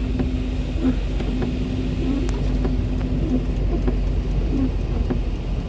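Steady rumble of a truck's engine and tyres heard from inside the cab while driving, with a constant hum and faint, regular clicks.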